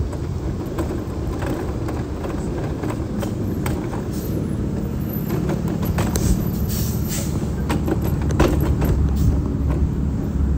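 Wheelchair rolling over city pavement: a steady low rumble with many scattered rattles and clicks, heavier near the end.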